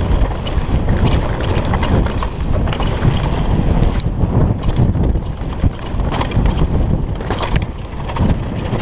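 Wind buffeting the handlebar-mounted camera's microphone on a fast downhill descent on a Specialized Demo downhill mountain bike, mixed with tyre noise on a dry dirt trail. A few short, sharp clatters come through as the bike goes over bumps.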